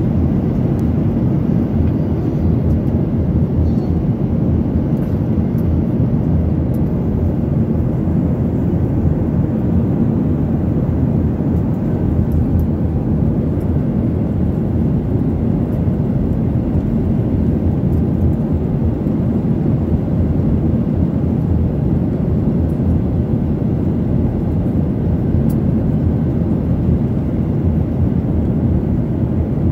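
Steady low rumble of an airliner cabin in flight: engine and airflow noise, even and unchanging.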